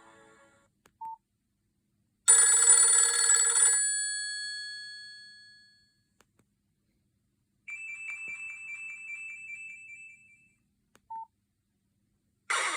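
Nokia 5220 XpressMusic phone playing its preloaded tones in turn. A short beep comes first, then a loud bell-like chime that rings out over a few seconds, then a warbling trill lasting about three seconds. Another short beep follows, and near the end a louder music ringtone starts.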